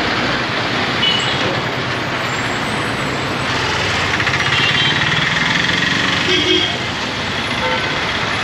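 Diesel bus engines running and passing close amid busy street traffic, a steady rattling rumble that grows a little louder midway as another bus approaches.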